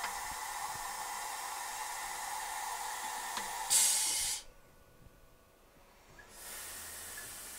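Steady hiss from a Tormach personal CNC mill during a manual tool change. A short, louder burst of hiss comes nearly four seconds in. The hiss then drops away for about two seconds and comes back with a low steady hum.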